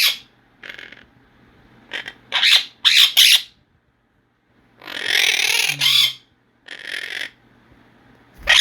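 Quaker parrots squawking: a string of short, sharp calls, with one longer harsh screech about five seconds in.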